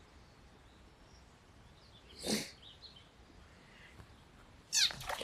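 A frog's short squeak as it leaps away toward the pond, about two seconds in. A second short sound follows near the end.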